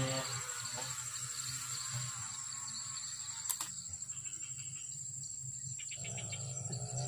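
Insects trilling steadily in the surrounding vegetation, a continuous high-pitched buzz. One sharp click sounds about halfway through, and a low engine hum starts to rise near the end.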